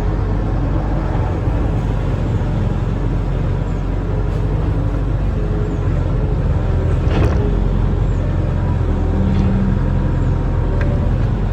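Diesel engine of a barge-mounted excavator running steadily under load, with a single short knock about seven seconds in.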